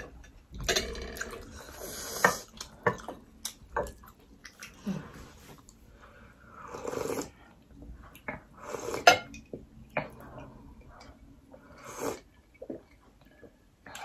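Close-up eating sounds: soup sipped and slurped in short bursts straight from a glass bowl, with chewing and a few sharp clicks of cutlery.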